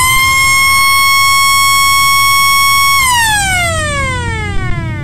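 DNI3712 mechanical rotary siren (6–17 V DC) sounding: a loud, steady wail that, about three seconds in, winds down with steadily falling pitch as the rotor slows.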